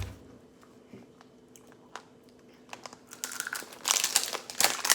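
Plastic wrap crinkling as a Mini Brands capsule ball is unwrapped: a few faint clicks at first, then dense, loud crinkling from about three seconds in.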